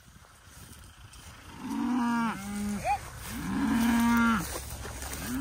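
Cattle mooing: two long moos one after the other, and a third beginning near the end, with a short rising squeak between the first two.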